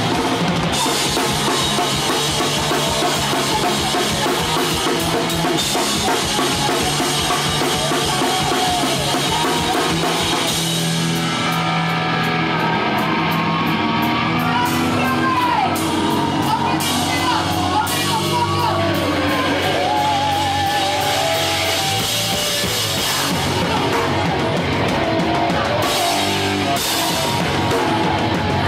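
Hardcore punk band playing live through a festival PA, heard from the stage on a camcorder microphone: distorted guitar, bass, drums and shouted vocals. About a third of the way in the drums mostly drop away, leaving a stretch of bending, wavering notes, and the full band crashes back in for the last few seconds.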